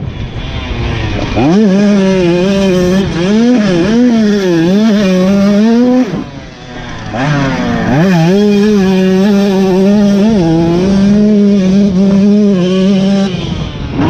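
A 2024 KTM 125 SX single-cylinder two-stroke dirt bike engine being ridden hard, revving up and down with the throttle. Its pitch climbs steeply early on, drops away off the throttle about six seconds in, then pulls back up and holds high.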